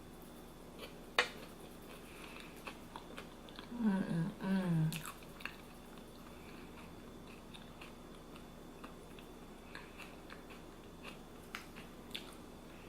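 Close-miked chewing and mouth sounds with faint scattered clicks, and one sharper click about a second in. Around four seconds in comes a short vocal sound of two parts, made with the mouth closed.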